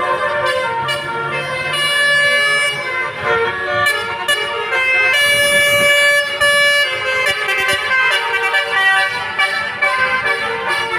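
Indonesian bus "telolet" horn of the basuri type, a set of multi-tone air horns, sounding a tune of held notes that jump from pitch to pitch.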